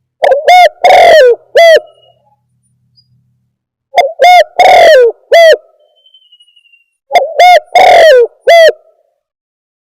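Spotted dove (tekukur) cooing, a recorded lure call for trapping the bird: three loud, identical calls, each a couple of short hooked coos around one long coo, repeated about every three seconds.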